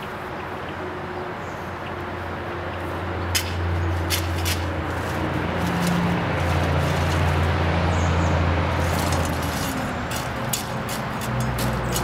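A low engine rumble that swells to its loudest mid-way and then eases off, with sharp clicks and scrapes of a small hand shovel working soil and gravel, most of them near the end.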